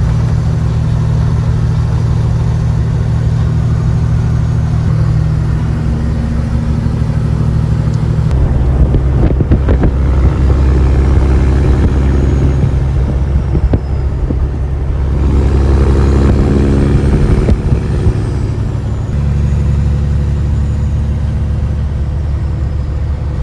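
Semi truck's Caterpillar diesel engine heard from inside the cab, running steadily on the road; its low drone shifts in pitch several times, dropping about eight seconds in and rising again near the end.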